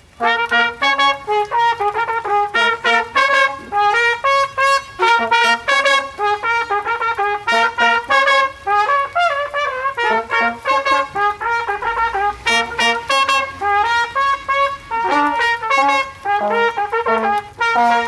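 Brass instrument playing a lively tune of quick, short notes.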